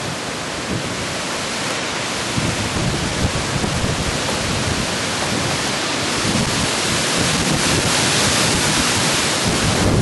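Strong gusty wind from Hurricane Ike's wind storm rushing through tall trees, leaves and branches thrashing, with wind buffeting the microphone. The gust builds, louder toward the end.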